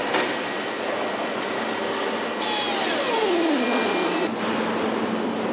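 Assembly-line factory noise: a steady machinery hum and clatter. In the middle a hiss starts and a whine slides steadily down in pitch, both stopping together about three-quarters of the way through.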